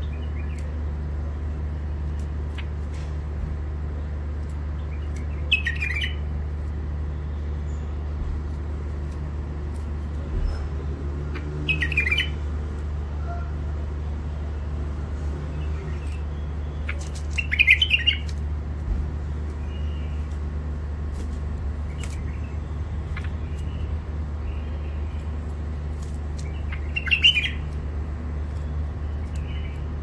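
Caged bulbul singing four short, sharp phrases spaced several seconds apart, with a few faint chirps between them, over a steady low hum.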